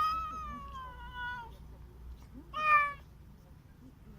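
A cat meowing twice: a long, drawn-out meow that falls in pitch, then a short one about two and a half seconds in.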